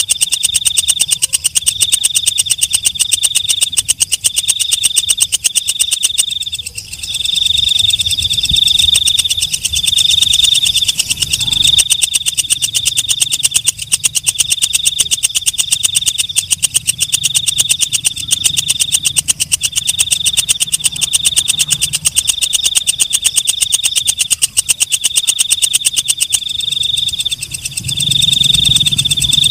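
A leaf-mimicking katydid (walang kecek) singing: a fast, steady stream of ticks with a high, shrill buzz that comes in phrases of about a second, separated by short breaks.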